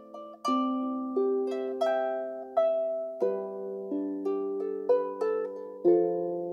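Celtic harp played solo. Plucked notes follow one another several times a second over lower bass notes, and each note rings on and fades.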